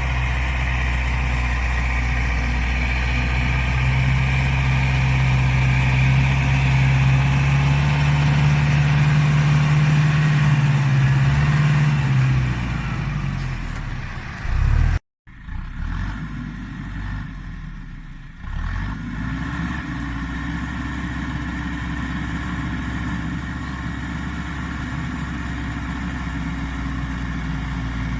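Case CX80 tractor's diesel engine running steadily, its note rising slightly before falling away about halfway through. It cuts out abruptly for a moment, then comes back and runs at an even note to the end.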